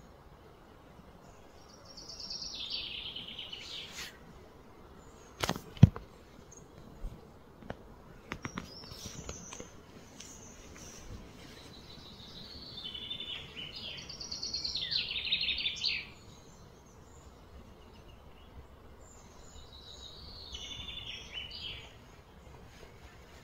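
A songbird singing in short, quickly trilled phrases, four of them a few seconds apart, over steady outdoor background noise. A pair of sharp knocks about six seconds in.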